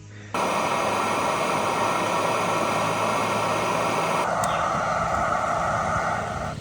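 Gas camp stove burner running with a steady hiss, likely heating a can of gumbo. It starts suddenly, loses some of its brightness about four seconds in, and fades near the end.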